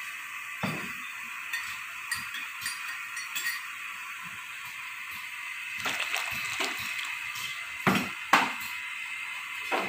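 Pot of water with tomato and onion boiling on the stove: a steady bubbling hiss, with scattered light clinks and two sharper clinks about eight seconds in.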